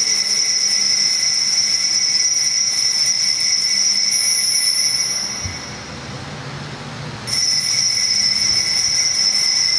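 Altar bell ringing with a steady, high, piercing tone at the elevation of the chalice during the consecration. It stops for about two seconds halfway through, as the chalice is set down, then rings again at the genuflection.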